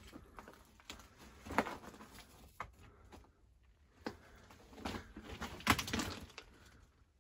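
Footsteps crunching and scuffing on loose rock and rubble, irregular and uneven, about eight steps with the loudest a little over a second in and near six seconds in, set in a small rock passage.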